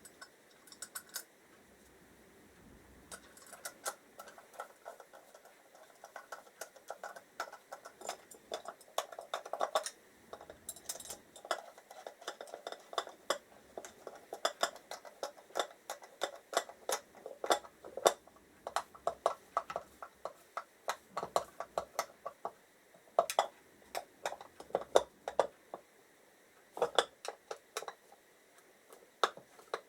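Irregular metallic clicks and clinks, some with a short ring, as small metal parts are handled while the screws holding the generator stator are fitted into its cover.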